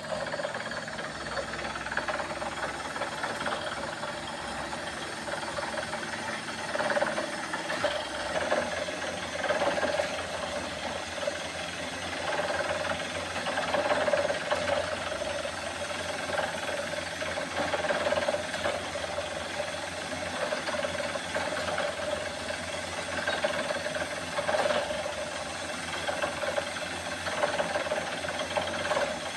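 Small borewell drilling rig running while it drills, a continuous machine drone that swells in level every few seconds.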